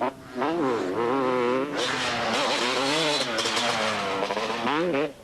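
250cc two-stroke motocross bike engine revving hard, its pitch rising and falling over and over with the throttle and gear changes. It dips briefly just after the start and again near the end.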